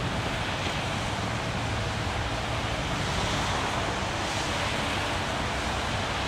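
Steady outdoor street ambience: an even rushing hiss with no distinct events.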